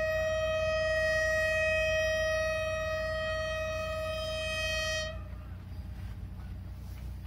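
Train horn sounding one long, steady warning blast on the approach to the level crossing, cutting off about five seconds in, with a low rumble beneath.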